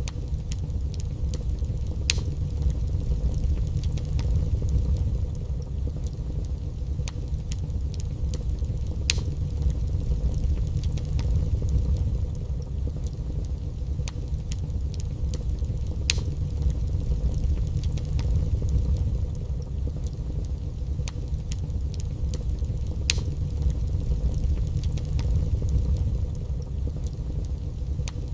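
Wood fire burning in a fireplace: a steady low rumble of flames with scattered faint crackles and a sharper pop about every seven seconds.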